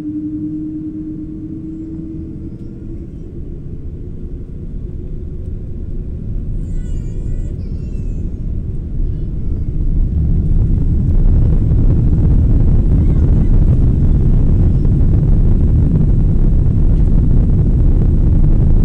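Cabin rumble of a Boeing 777-200's twin turbofan engines heard from a window seat over the wing while the jet taxis onto the runway; about ten seconds in the engines rise in thrust and the rumble grows louder, then holds steady.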